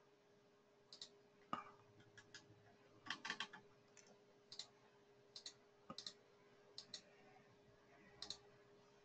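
Faint, irregular computer mouse clicks, about a dozen, with a quick cluster about three seconds in, over a faint steady low hum.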